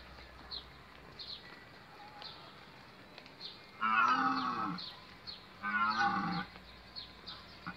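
Animatronic dinosaur's loudspeaker playing two long, low, moo-like calls of about a second each, the first about four seconds in and the second about a second and a half later.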